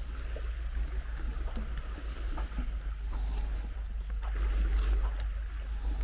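Footsteps on loose beach sand, about one a second, over a steady low rumble.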